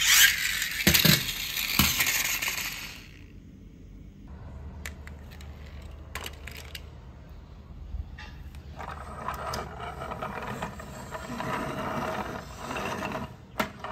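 A small plastic toy monster truck rattling as it rolls across a tile floor for the first few seconds. Then, near the end, plastic toy vehicles clatter and scrape as they are handled and pushed.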